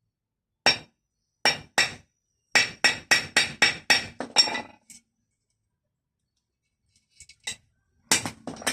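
Hammer tapping on metal: three single strikes, then a quick run of about eight at roughly four a second, each with a short metallic ring. After a pause, a few more strikes come near the end.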